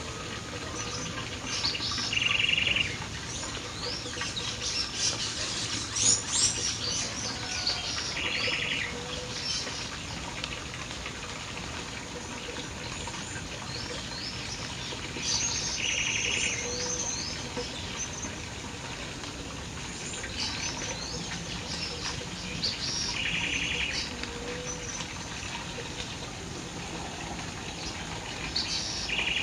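Several birds singing: many short high chirps, and a rapid trill that comes back about every seven seconds, over a steady background hiss.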